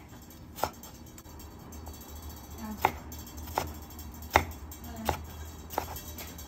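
Chef's knife chopping a tomato on a wooden cutting board: sharp knocks of the blade against the board, one early and then a run of five spaced under a second apart after a pause of about two seconds.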